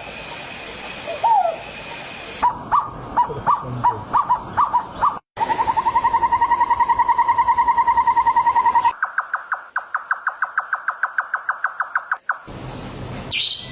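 Calls of several different birds, one recording after another with abrupt cuts: two rising-and-falling calls, then short calls repeated about twice a second, then a fast steady trill of about ten notes a second, then another rapid run of notes that stops suddenly.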